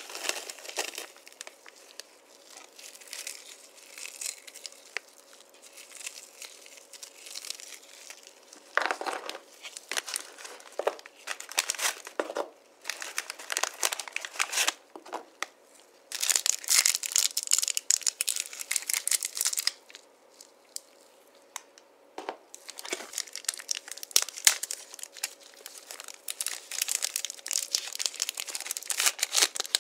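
Candy wrappers crinkling and tearing as gloved hands unwrap sweets, in irregular bursts of crackling, busiest through the second half.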